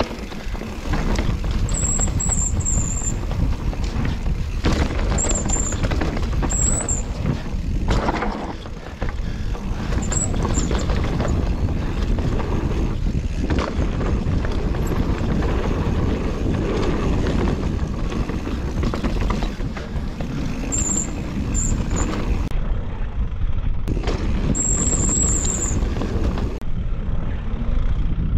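A mountain bike ridden down a dirt trail: a continuous heavy rumble and rattle of tyres and bike over the ground, with short high squeals several times.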